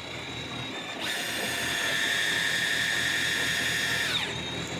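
Fishing reel whining under heavy load as a big fish is fought, a steady high motor-like whine that comes in strongly about a second in and slides down in pitch just after four seconds.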